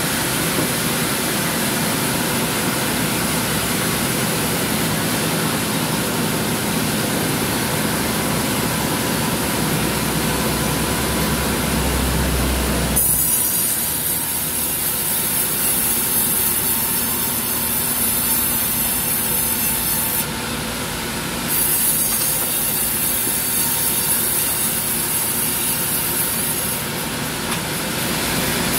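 Sawmill band saw running steadily. About halfway through, its blade starts cutting teak wood with a loud high hiss that breaks off briefly, resumes, and stops shortly before the end.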